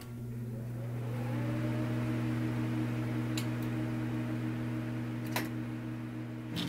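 Steady low electrical hum of a running appliance motor or fan, with two faint clicks, one a little past halfway and one near the end.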